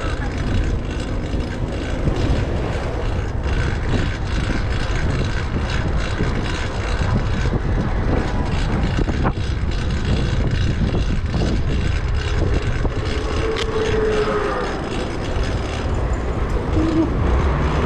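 Steady rushing ride noise from a fixed-gear bicycle on the move, with its loud drivetrain running on a new cog.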